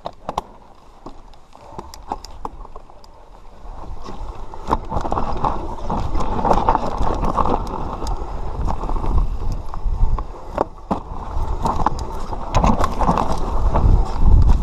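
Mountain bike riding down a rocky dirt trail: tyres rolling and crunching over dirt and stones, the bike rattling with many sharp knocks, and wind rumbling on the microphone. Quieter with only scattered clicks at first, it grows much louder about four seconds in as the descent picks up.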